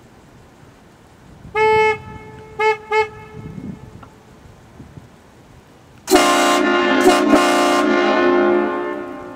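A 2010 Jeep Wrangler JKU's factory horn honks once on a single note, then gives two short toots. A few seconds later the aftermarket Hornblasters air train horn blasts a loud chord of several notes for about two and a half seconds, broken twice briefly, then dies away.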